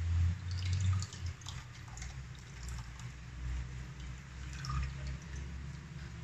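Small splashes and trickles of liquid as tamarind water is poured into cooked lentils for sambar.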